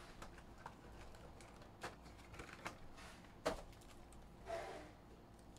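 Faint clicks and taps of trading card packs being pulled from their cardboard box and stacked by hand, with a brief soft rustle a little before the end.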